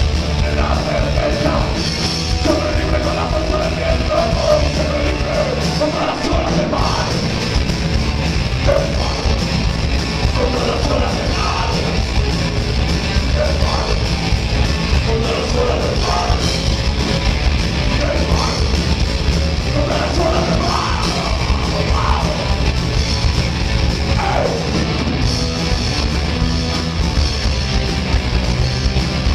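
Heavy metal band playing live, with a singer's voice over loud, dense guitars and drums.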